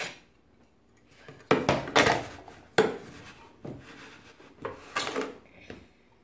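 A plastic measuring cup scooping granulated sugar from a clear plastic container: a string of about six knocks and scrapes of cup against container, starting about a second and a half in.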